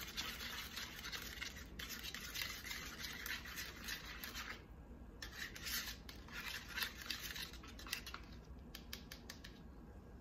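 A wire whisk beating a thick mayonnaise-based remoulade sauce in a plastic bowl, making a fast scratchy rubbing with small clicks against the bowl. After about four and a half seconds it comes in patchier bursts, and near the end only a few scattered clicks are left.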